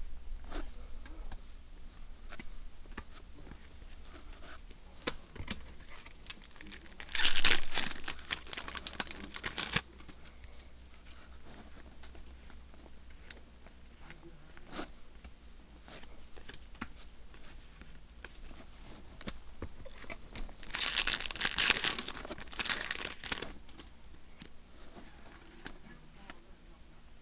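Yu-Gi-Oh! trading cards being handled and flipped through, with small clicks and slides of card against card. Twice there is a louder rustling that lasts two to three seconds.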